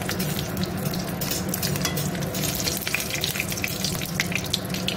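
Bay leaves sizzling in hot oil in a kadai, with a steady crackle of many small pops over a low, even hum.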